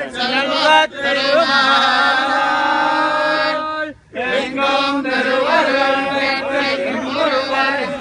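Men's voices chanting devotional hymns together, sustained and sung, breaking off briefly about halfway through before resuming.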